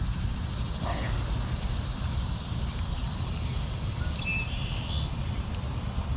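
Steady low outdoor rumble with a bird's short high whistle sliding downward about a second in, and a few faint bird chirps around four seconds in.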